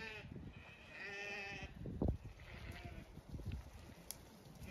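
Zwartbles sheep bleating as the flock runs in: a call right at the start, a longer one about a second in and a fainter short one near three seconds. A sharp thump about two seconds in.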